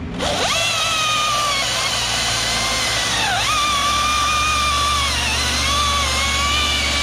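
Husqvarna T540i XP battery top-handle chainsaw speeding up to a high electric whine and cutting into hard dead maple. Its pitch sags twice under load and recovers, a sign the saw is near its limit in wood this big.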